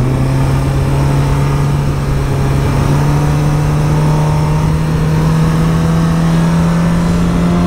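Motorcycle engine running at a steady throttle, its pitch slowly rising as the bike gently picks up speed, heard from on board with wind rumble on the microphone.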